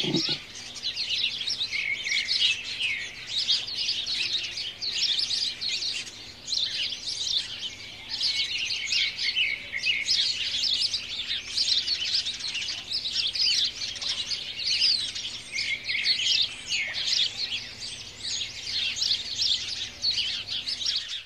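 A dense chorus of small songbirds chirping and trilling, many calls overlapping.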